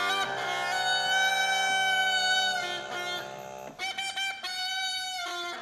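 A wooden early-music wind instrument playing a melody in long held notes over a lower sustained accompaniment. The accompaniment drops out a little past halfway, and the wind instrument plays a final phrase that ends the piece near the end.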